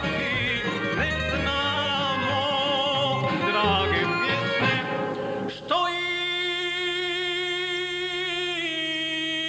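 A man singing a sevdalinka, a Bosnian folk song, with ornamented, wavering melody over instrumental accompaniment with a bass line. A little past halfway the accompaniment drops out and he holds one long, steady note.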